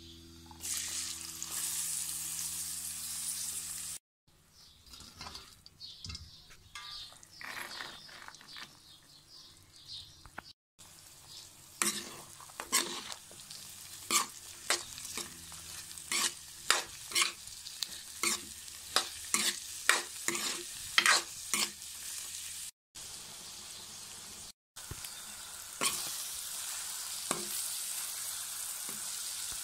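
Chopped bitter gourd and onions sizzling as they fry in oil in a metal pan, stirred with a spatula. Through the middle stretch the spatula clacks and scrapes sharply against the pan many times, and a steady low hum runs under the first few seconds.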